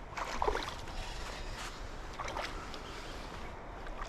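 River water moving and trickling around a kayak, with a few short, irregular splashes or knocks.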